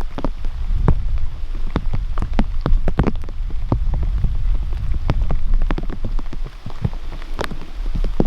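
Engine running rough with a misfire: irregular pops and ticks over a low rumble, with a louder pop about seven and a half seconds in.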